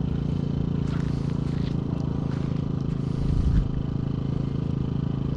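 An engine running steadily, with a brief low thump about three and a half seconds in.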